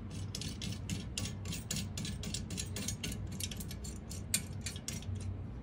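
Threaded knobs being spun by hand into the metal mount's bracket: a quick, even run of light clicks, about five a second, with one louder click about four seconds in, stopping near the end.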